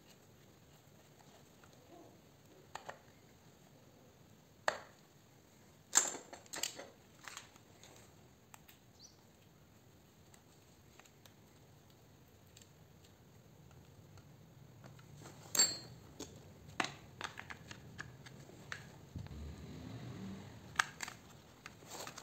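Scattered metallic clicks and taps of a hex key working screws on a chainsaw's metal housing, with a sharper knock about six seconds in and another past the middle.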